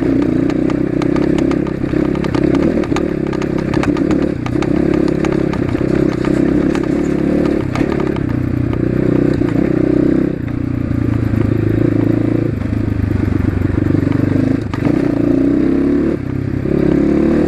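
Asian Beast 250 dirt bike's engine running under way through its loud exhaust, the revs mostly steady and dipping briefly a few times in the second half as the throttle eases off. A scatter of sharp clicks and knocks rides over it.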